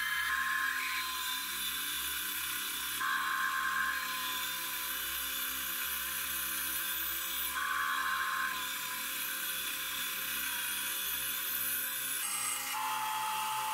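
FABTEC BS 250 bandsaw running, its blade cutting through a thick block of wood, a steady whining saw sound that shifts in tone a few times.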